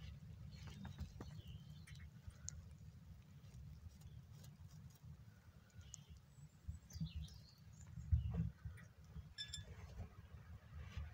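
Quiet rustling and bumping around a nest of day-old rabbit kits, with scattered small clicks and a few brief high squeaks. A louder bump comes about eight seconds in.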